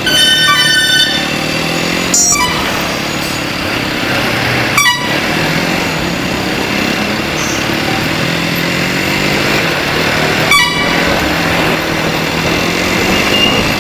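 Street traffic: motor vehicle engines running steadily, with vehicle horns honking, one longer honk at the start and short honks about two, five and ten and a half seconds in.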